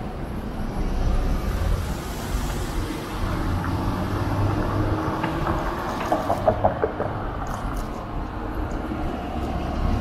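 Downtown street traffic heard while cycling: a steady low rumble and hiss of passing vehicles, with a brief cluster of short squeaky, ringing tones about six to seven seconds in.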